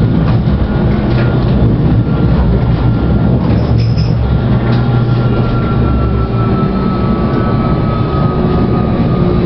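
Alstom Citadis tram running at speed, heard from inside the car: a steady low rumble of wheels on rail with a thin electric whine from the traction drive that slowly falls in pitch over the second half.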